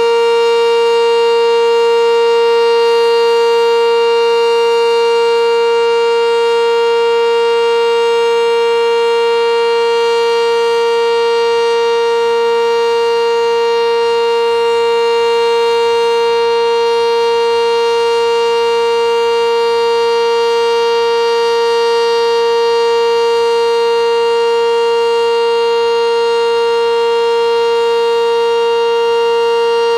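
Sentry 10V2T outdoor warning siren sounding a steady, really loud single tone that holds its pitch without rising or falling. Only one of its two motors is running, so the dual-tone siren gives one tone instead of two.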